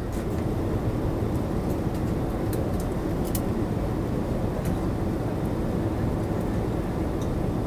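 Steady cabin noise of a Boeing 787-8 Dreamliner in descent: a low, even rumble of airflow and GE GEnx-1B engine noise heard from a window seat, with a few faint light clicks.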